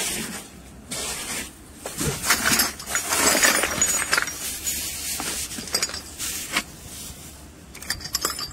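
Green PPR plastic pipe fittings and a brass fitting being handled and set down on stone paving: irregular clinks and knocks, with a stretch of rustling about two to four seconds in.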